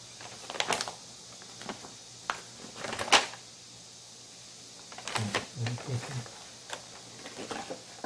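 A paper instruction leaflet rustling and crinkling in short bursts as it is handled and unfolded, the loudest crackle about three seconds in, then a clear plastic blister pack handled near the end.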